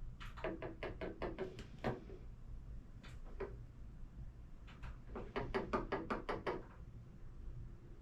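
Knocking in two quick runs of about ten raps each, with a couple of single knocks between them.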